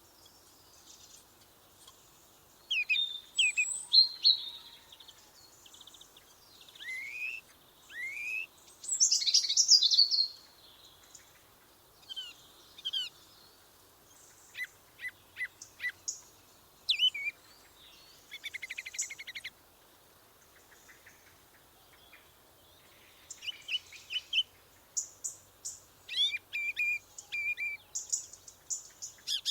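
Songbirds calling and singing: a string of short, varied high-pitched phrases of chirps, gliding whistled notes and rapid trills, with brief quiet gaps between them.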